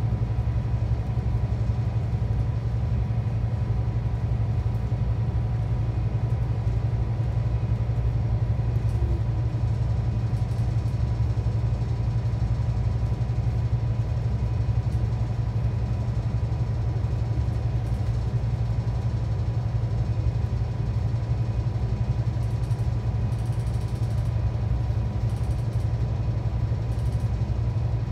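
Steady low drone of a Scania K360EB4 / Irizar i6 coach's engine and running gear, heard from inside the passenger cabin, with a faint steady high tone and no rises in revs.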